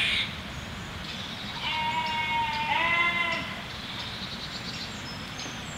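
Sheep bleating: two drawn-out bleats in quick succession about two seconds in, with faint birdsong.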